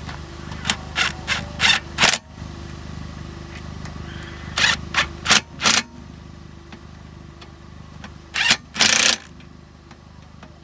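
Impact wrench spinning lug nuts in short rattling bursts: five quick ones close together, four more a few seconds later, then two near the end, the last about half a second long. A vehicle engine idles steadily underneath.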